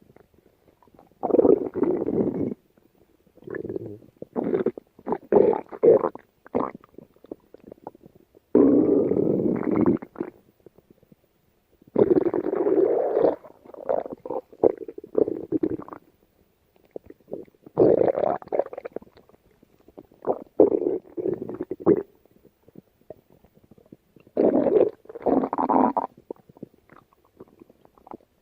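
Stomach growling and gurgling in a run of rumbles, each a second or two long, with short quiet gaps between them.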